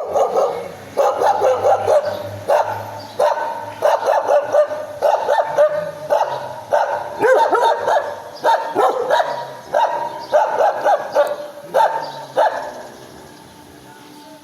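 A dog barking in a very high-pitched, shrill tone, a fast run of barks about one or two a second, which stops about two seconds before the end.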